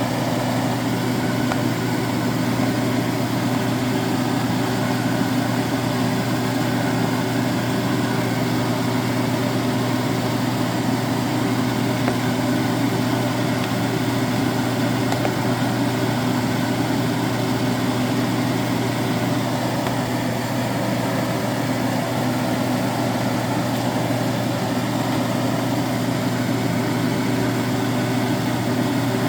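A steady mechanical hum, even and unbroken, with a low droning tone.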